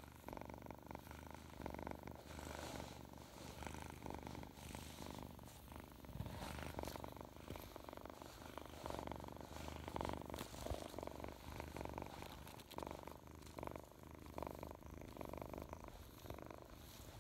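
Feral kitten purring steadily while being brushed, with repeated scratchy strokes of the brush through its fur close to the microphone.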